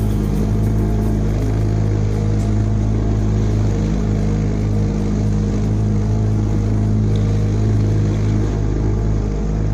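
Outboard motor running at a steady speed, driving a small boat through choppy water.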